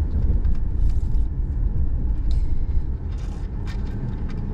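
Road noise heard inside a car's cabin: a steady low rumble of tyres and engine while driving over an unpaved gravel road, with a few faint ticks and crackles.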